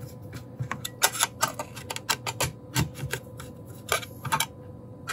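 Irregular sharp clicks and taps of a small hand driver and fingers working screws into a 3D-printed plastic enclosure, a few clicks a second at times.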